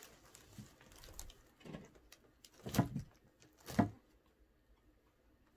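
Cat paws pawing and scratching at a cardboard box: a few soft scuffs, then two louder ones about a second apart near the middle.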